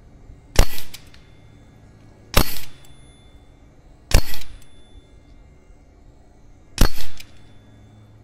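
Four shots from a Karma Airguns SLS .25 caliber pre-charged pneumatic air rifle, each a sharp crack with a brief tail. The first three come about two seconds apart, the last after a slightly longer gap.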